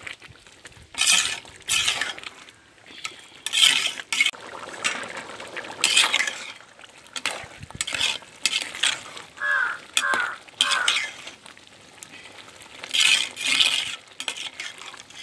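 Metal ladle scraping and stirring thick rice in a large aluminium pot, in irregular strokes, with a few short high squeaks about ten seconds in.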